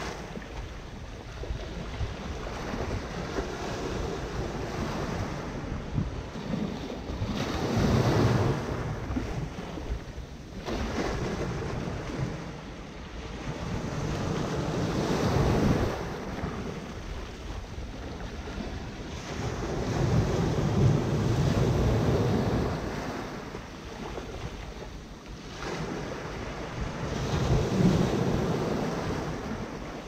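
Small Mediterranean Sea waves breaking on sand and washing against shoreline rocks, rising in four louder rushing surges about every six to seven seconds with quieter wash between.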